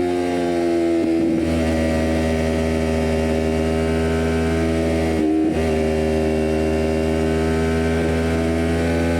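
Kawasaki Ninja 400 parallel-twin engine running through a full Jeskap exhaust with the catalytic converter removed, holding a steady note. The note dips briefly about a second in and again past the middle.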